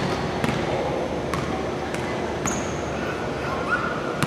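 Basketballs bouncing on a hardwood gym floor: several sharp, unevenly spaced bounces.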